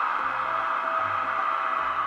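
H0-scale model of an SBB Re 4/4 electric locomotive with a Zimo sound decoder, playing a steady electric-locomotive hum and blower noise through its small onboard speaker.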